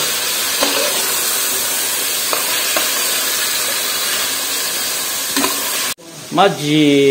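Chicken pieces sautéing with garlic and onion in hot oil in a pot, sizzling steadily while stirred with a metal spoon that scrapes and taps the pot a few times. The sizzle cuts off abruptly about six seconds in.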